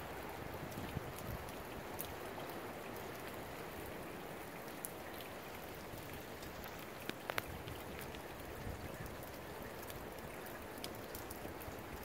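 Storm rain falling in a steady rush, with many sharp ticks of drops striking close by. A few louder ticks come about seven seconds in.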